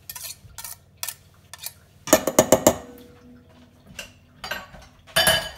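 Metal kitchen utensils clinking, scraping and knocking against a bowl, with a quick run of about five sharp knocks a couple of seconds in and another loud clatter near the end.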